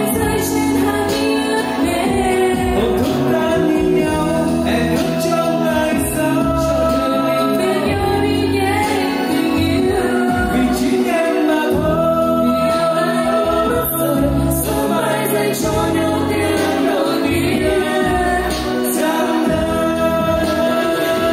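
A song: a voice singing a melody over instrumental accompaniment with a steady bass line.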